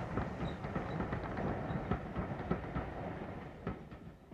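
Train running on track, its wheels clattering over rail joints: an uneven run of clicks over a low rumble, fading away near the end.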